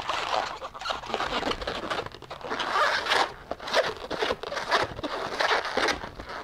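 Inflated 260 latex modelling balloons squeaking and rubbing against each other in irregular bursts as they are twisted into bubbles.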